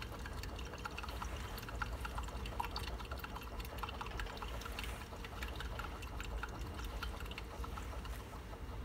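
Magnetic stirrer spinning a stir bar in a beaker of Carbopol, Ethomeen C25 and isopropyl alcohol, mixing the solvent gel so that no lumps remain. It gives a steady low hum with faint liquid swirling and scattered light ticks.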